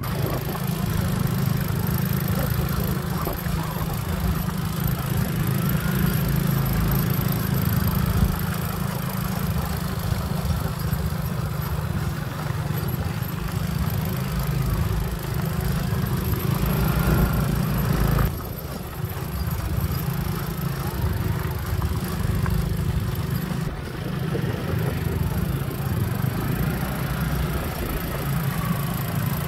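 Motorcycle engine running steadily while riding, a continuous low hum, with a brief dip in level about 18 seconds in.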